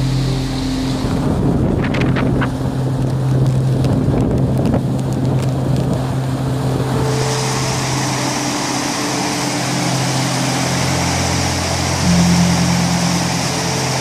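Typhoon floodwater rushing and churning, with wind buffeting the microphone, under sustained background music; the water noise becomes louder and brighter about seven seconds in, where the torrent pours past a bridge railing.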